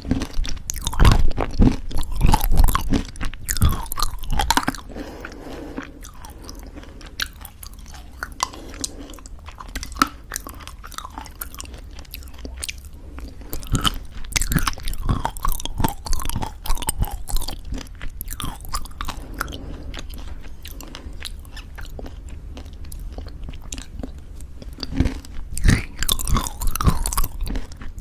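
Close-miked chewing of granola in thick yogurt: crisp crunches in several bouts with softer, wetter chewing between.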